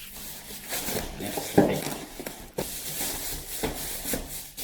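Paper and packaging being handled: irregular rustling with a few sharp knocks, the loudest about one and a half seconds in.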